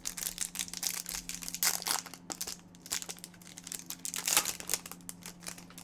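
Foil wrapper of a trading-card pack being torn open and crinkled by hand, a dense run of irregular crackles.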